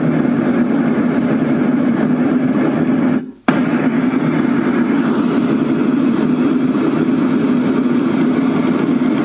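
Douni white noise machine playing one of its built-in sounds through its speaker: a loud, steady, low-pitched noise. It cuts out for a moment about three seconds in, as it switches to the next sound, and comes back slightly brighter.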